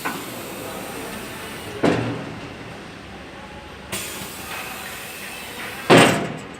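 Four heavy knocks about two seconds apart, each dying away quickly, the last one the loudest.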